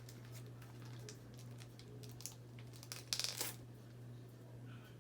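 Trading card pack wrapper crinkling faintly as it is worked open, with a louder rustle about three seconds in, over a steady low hum.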